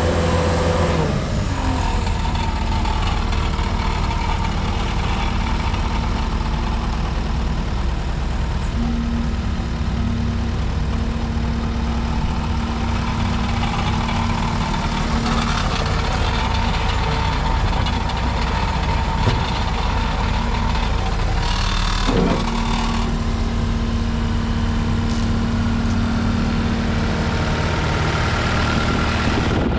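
2015 Case SR210 skid steer's diesel engine running steadily, its speed dropping about a second in and then holding even, with a couple of brief clunks a little past the middle.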